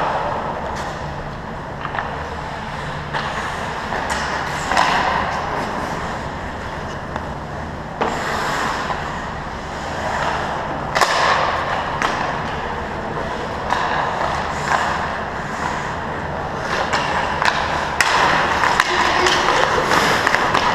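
Ice hockey play on an indoor rink: skate blades scraping and carving the ice, with a few sharp clacks of sticks and puck, the loudest about halfway through and near the end, over a steady low hum. The scraping grows louder and busier near the end as play comes in toward the goal.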